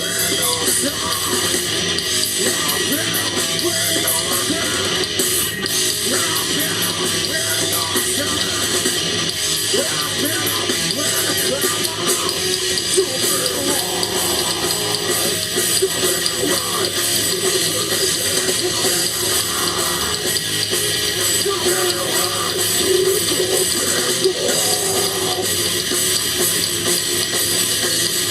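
A live rock band playing a song: electric guitar and drum kit, loud and dense without a break.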